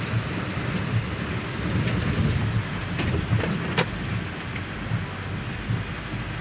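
A car driving along a wet, flooded road, heard from inside the cabin: a steady rush of engine and tyre noise, with soft thumps about once a second and a few sharp clicks near the middle.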